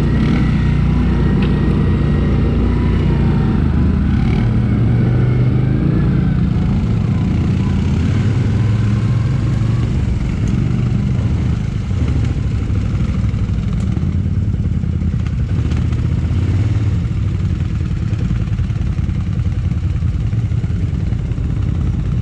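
Quad bike (ATV) engine running steadily while riding along a dirt trail, its low engine note rising and falling a little with the throttle.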